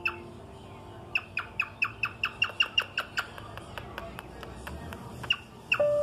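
Male cockatiel giving a fast run of short, sharp chirps, about five a second, starting about a second in, with a few more scattered near the end.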